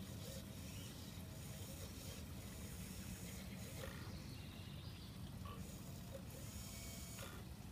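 Small electric winch motors of an RC crawler crane whining faintly and changing pitch as the cable-hung bucket is worked in sand, with a few light clicks over a steady low rumble.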